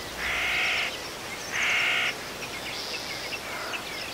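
A crow cawing twice in the first two seconds, two long harsh calls, over a background of small birds chirping.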